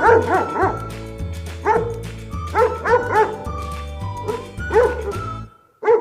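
A dog barking and yipping in quick clusters of short, high barks over background music. The music cuts off near the end, leaving one last bark.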